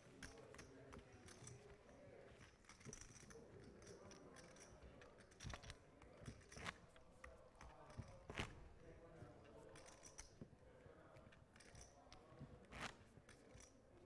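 Faint clicking of clay poker chips being handled and stacked, a few separate sharp clacks, the loudest a little past the middle, over a faint murmur of voices.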